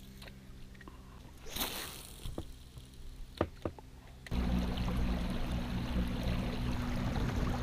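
A few light knocks, then about four seconds in a boat's outboard motor starts running at a steady pitch, with water rushing along the inflatable hull as the boat gets under way.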